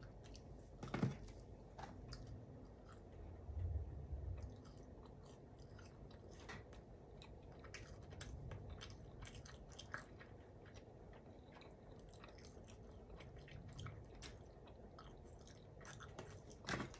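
A person chewing a mouthful of soft coconut pretzel close to the microphone, with many small mouth clicks and smacks throughout and a few louder bites or swallows.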